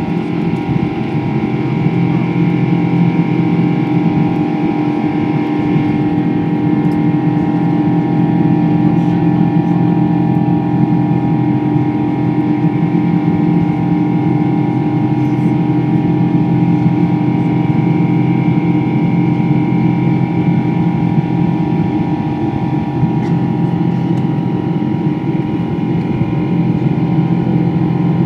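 Jet airliner cabin noise in flight: the turbofan engines' steady drone, with several even tones over a rushing hiss, heard inside the cabin.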